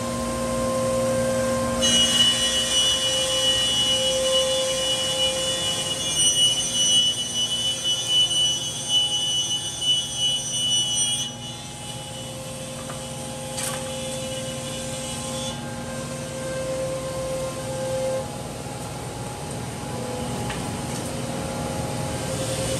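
Holz-Her Dynestic 7532 CNC router running: a steady machine hum with several high whining tones and an uneven rush through the first half. About halfway through it drops to a quieter, steadier hum, with a single sharp click a little after.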